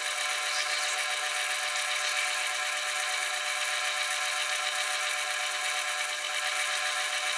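South Bend lathe running steadily while drilling the tap-drill hole with a letter F drill, a constant whir with a few steady tones and no change in pace.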